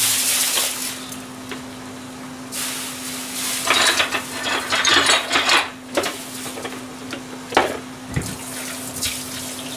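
Plastic bag crinkling and rustling as napa cabbage leaves are pulled out of it, with a longer burst of rustling and handling in the middle, then a few sharp knocks of plastic containers and kitchenware. A steady low hum runs underneath.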